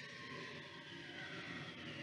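Halloween sound-effects track: a steady rushing noise with faint wavering high tones, louder just after the end.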